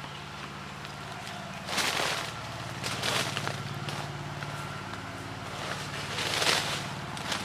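A knife stirs and scrapes chopped greens in a black cooking pot, giving a few short rasps, the loudest near the end. Under them runs a steady low hum.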